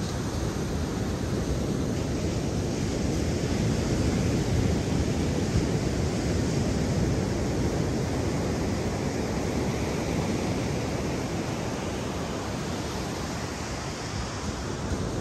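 Steady rush of ocean surf mixed with wind on the microphone, a little louder in the middle.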